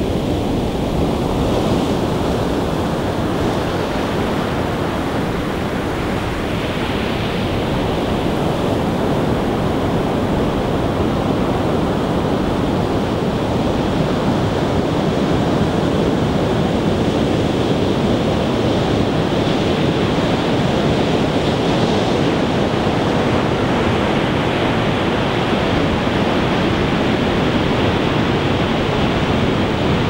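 Heavy storm surf breaking continuously in several lines at once, a dense, steady wash of noise in which no single crash stands out.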